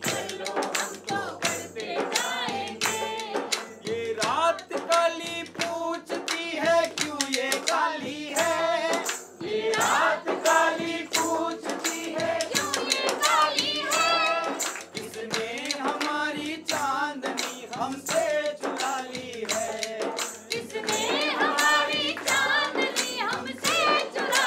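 A mixed group of men and women singing a Hindi protest song together, with hand clapping and jingling hand percussion, including ghungroo bells, keeping a steady beat.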